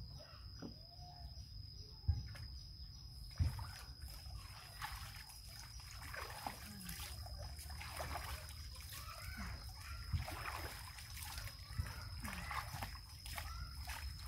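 Water splashing and trickling in a plastic tub as a monkey is washed by hand, with water scooped and poured over it, plus a few dull thumps. A steady high-pitched tone runs underneath.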